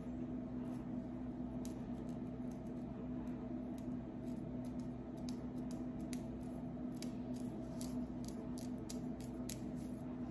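Long fingernails scratching and picking at a flaky, dandruff-covered scalp through natural hair: crisp, irregular scratchy clicks, several a second, coming thicker in the second half. A steady low hum runs underneath.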